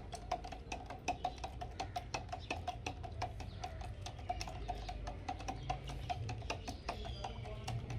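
Metal stirring rod clinking rapidly against the sides of a clear jar, about three or four clinks a second, as car paint is mixed with thinner to thin it down.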